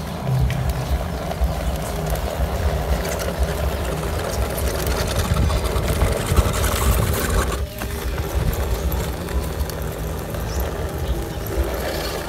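ZP1001 RC crawler truck's electric motor and gearbox whirring steadily as it drives through muddy water, with its tyres splashing, and a brief break a little past halfway.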